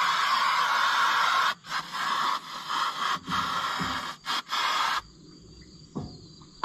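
Motor oil pouring from a plastic jug into a tractor engine's oil filler: a steady rushing hiss that breaks up about a second and a half in into uneven gushes with short gaps as the jug burps, then falls away about five seconds in.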